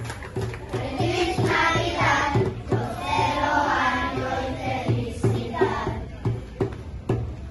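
Children's choir singing a Christmas carol together over a steady beat.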